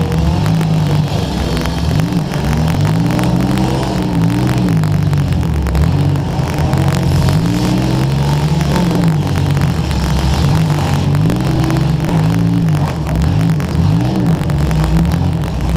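Demolition derby car engine revving hard, its pitch rising and falling again and again as the throttle is worked. Dense crackling static from a wet microphone runs over it.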